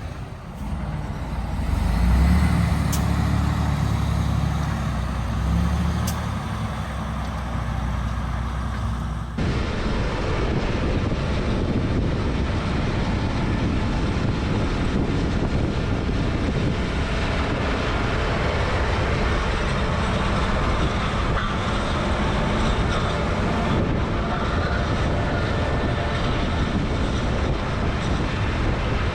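Large diesel harvest machinery running: an engine drone for the first nine seconds or so, then, after an abrupt change, a steady dense mechanical running noise.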